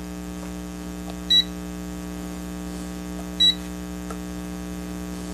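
Aneng AN8009 digital multimeter giving two short high key beeps, about two seconds apart, as its buttons are pressed while it is set to temperature mode. A steady low electrical hum runs underneath.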